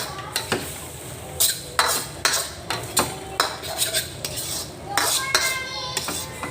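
Metal cooking utensil stirring, scraping and knocking against a pan while stir-frying, with a dozen or so sharp, irregular clinks.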